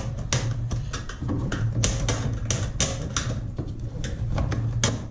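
Irregular sharp plastic clicks and knocks, a dozen or so, as the old water inlet valve of a front-load washer is worked loose from its mounting by hand.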